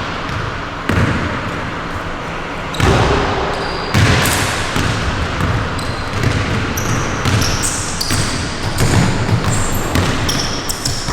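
A basketball bouncing on an indoor court floor, with short high squeaks through the second half.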